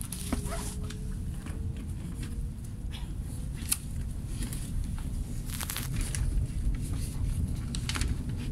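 Commuter train running, a steady low rumble inside the carriage, with a faint rising whine in the first couple of seconds and scattered light clicks throughout.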